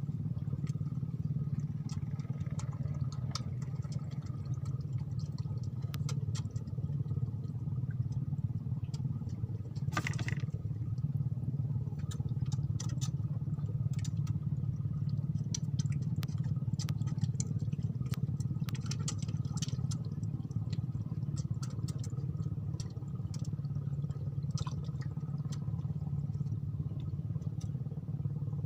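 A small engine running steadily, with scattered light clicks and clatter over it.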